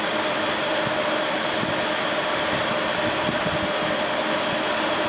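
Large wall-mounted ventilation fan running: a steady rushing noise with a constant hum.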